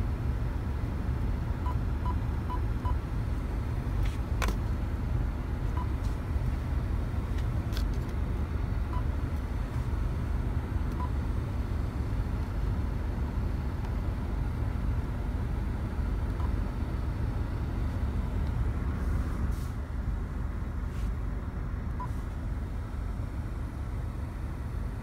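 Steady low rumble inside a car's cabin. Over it come short high touchscreen beeps from the head unit: four quick ones about two seconds in as a PIN is keyed, then single beeps every few seconds. A couple of sharp clicks come around four and eight seconds in.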